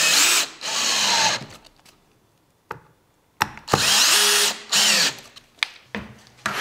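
DeWalt 18V XR cordless drill-driver driving screws into plywood: two runs of the motor with a short pause between, each ending as the whine falls away when the screw seats. A few short knocks follow near the end.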